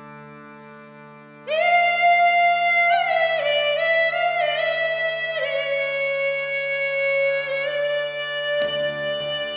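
A harmonium holds a soft, sustained chord. About a second and a half in, a woman's voice enters loudly over it, singing a slow melody with small turns between held notes. Near the end a 12-string guitar joins with strummed chords.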